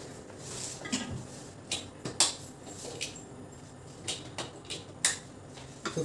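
Several sharp plastic clicks from the power button of an Inalsa Spark canister vacuum cleaner, pressed again and again, with no motor starting. The cleaner is dead: a wire of its power cord has come loose inside.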